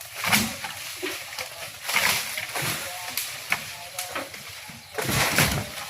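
Leafy tree branches rustling and crackling in uneven bursts as they are cut and pulled, with a louder burst about five seconds in.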